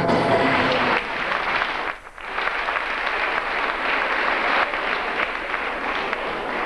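Music stops about a second in, and an audience applauds steadily, with a short lull near two seconds.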